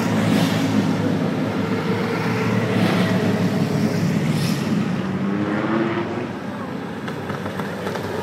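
Engines of vintage racing cars running hard as the cars pass one after another up a hillclimb road, the engine note rising and falling as they accelerate, with a rising note a little past the middle.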